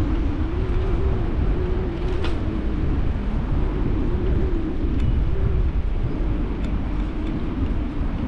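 Wind rumbling over the microphone and road noise from a bicycle ridden along an asphalt street, with a faint wavering hum and a few light ticks.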